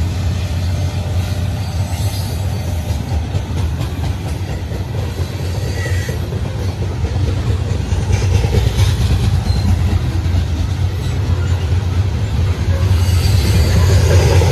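Norfolk Southern freight train's cars rolling past close by: a loud, steady low rumble of wheels on rail, growing louder near the end.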